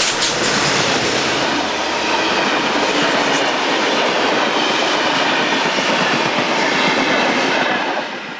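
Passenger carriages of a steam-hauled train rolling past close by, their wheels clattering over the rail joints. The noise drops away about eight seconds in as the last carriage clears.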